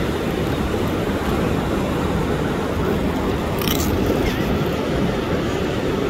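Ocean surf breaking and washing up the beach: a steady, loud rushing noise, deepest in the low end, with a brief hiss a little past the middle.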